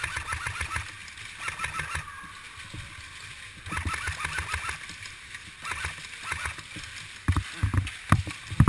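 Airsoft guns firing in short bursts, each a rapid ticking rattle, several times over, with knocks and thumps of gear and a body-worn camera moving close by near the end.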